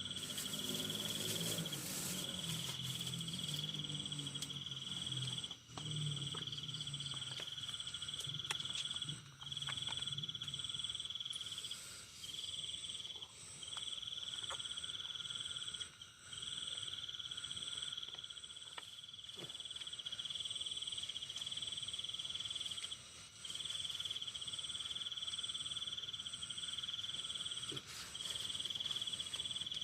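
Crickets trilling in long, even phrases of one high steady tone, each broken by a brief gap every few seconds. A lower pulsing call, likely frogs, runs under them through the first ten seconds.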